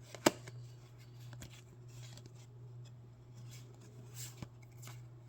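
Pokémon trading cards and pack foil being handled: one sharp click about a quarter second in, then scattered light taps and a soft rustle over a steady low hum.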